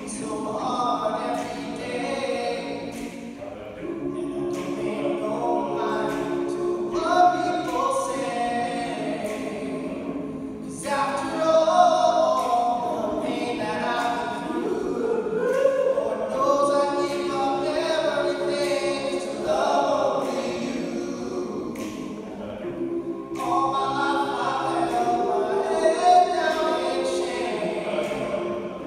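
All-male a cappella group singing in close harmony, the voices holding sustained chords that shift every few seconds beneath a higher melody line.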